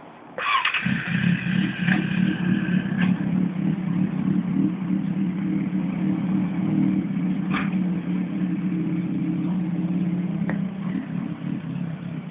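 Kawasaki Z750S's 748 cc inline-four motorcycle engine started: a short starter whine, then the engine catches within a second. It settles into a steady idle, with a high whine fading after the first couple of seconds.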